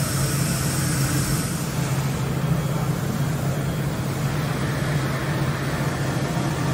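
Mori Seiki NT1000SZM mill-turn centre running, a steady low machine hum, with a high hiss over it that fades about two seconds in.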